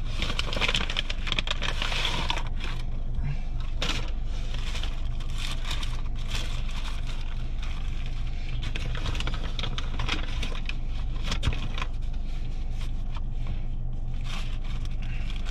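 Paper bag and sandwich wrappers rustling and crinkling in irregular bursts as they are handled, over a steady low hum.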